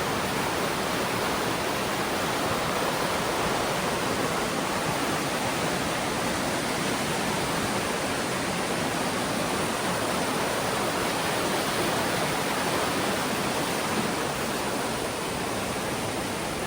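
Waterfall rushing, a steady full hiss of falling water.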